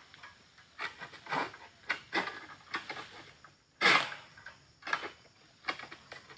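Sickle blade on a long harvesting pole hacking and scraping at an oil palm frond stalk, in about seven irregular rough strokes, the loudest about four seconds in.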